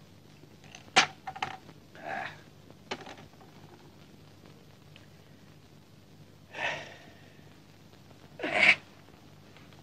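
A man's breathy exhales and grunts, the loudest near the end as he strains to get up, with a few sharp clinks early on as a glass and a bottle are set down on a glass-topped table.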